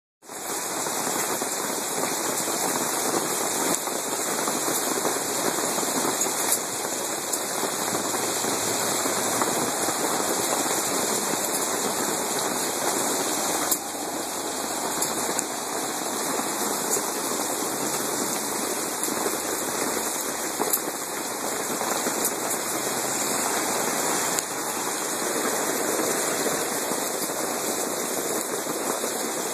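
Small hail and heavy rain falling on wet pavement: a steady hiss with scattered sharp ticks of hailstones striking.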